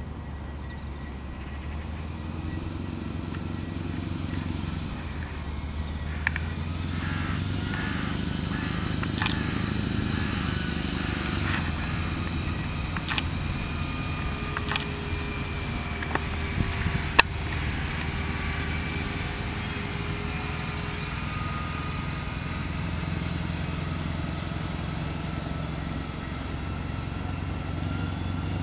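Six-wheeled airport crash tender's diesel engine running with a steady low rumble as it drives by, with a few sharp clicks, the loudest about seventeen seconds in.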